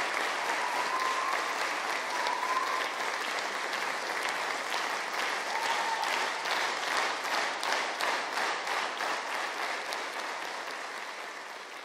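Concert audience applauding, a dense patter of many hands clapping that dies down over the last few seconds.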